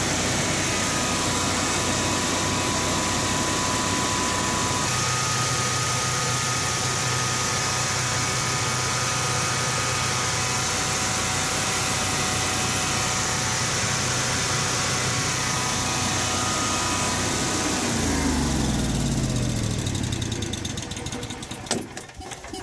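Generac home standby generator's OHVI engine running steadily at speed while the alternator puts out about 245 volts. A little after three quarters of the way through, the engine winds down, its pitch falling, and stops.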